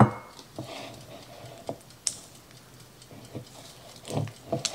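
A sharp knock at the start, then scattered light clicks and taps at uneven intervals: a wire whisk and utensils knocking against a plastic mixing bowl as butter, sugar and honey are stirred.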